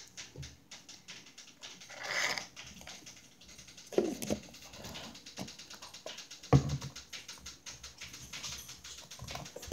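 Red plastic lid being handled and screwed onto a plastic peanut butter jar, with small clicks and scrapes and a sharp knock about six and a half seconds in.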